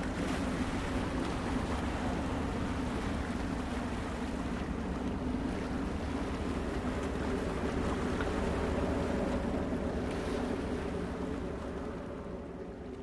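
Ocean surf and wind, a steady wash of noise from waves breaking on a beach, fading out near the end.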